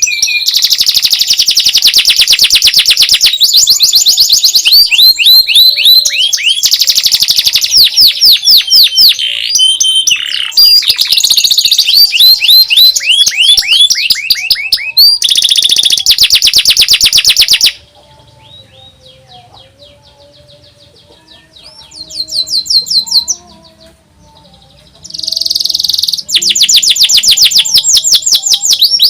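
Domestic canary singing loud, very fast high trills of repeated rising notes, the shrill 'nyerilik' trilling style. The song breaks off about two-thirds of the way through, leaving only faint chirps for several seconds, then the loud trills resume near the end.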